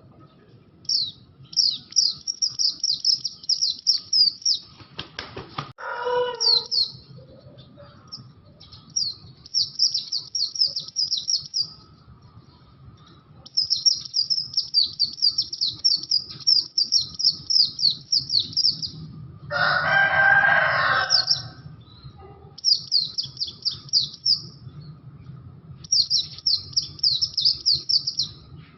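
Pleci (white-eye) singing in rapid, high twittering phrases a few seconds long, repeated seven or eight times with short pauses between. About twenty seconds in there is a lower, harsher buzzing sound lasting about two seconds, and a shorter one about six seconds in.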